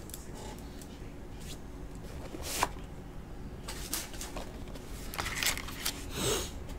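Light handling of a cardboard trading-card box: a few scattered clicks and taps, with a short crinkle of a foil card pack near the end.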